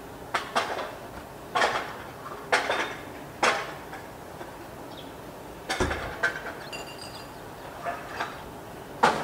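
A string of irregular sharp knocks and clatters, about ten in all, over a steady background noise. One knock about six seconds in is followed by a brief metallic ring, and the loudest comes near the end.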